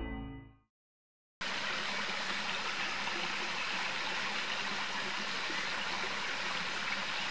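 Steady rushing of flowing water, a stream, starting suddenly about a second and a half in after a short silence.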